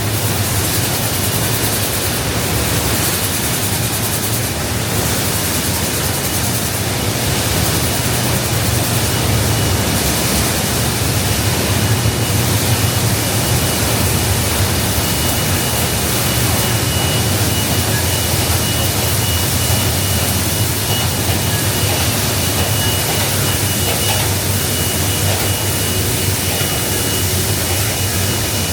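Steady machinery noise of an automated relay production line: a constant low hum under an even hiss, with a faint high whine.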